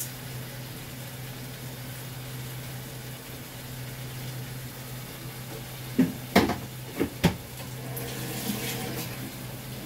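Wooden spatula knocking against a metal cooking pot of simmering fiddlehead fern curry: a quick run of about five sharp knocks about six seconds in, over a steady low hum.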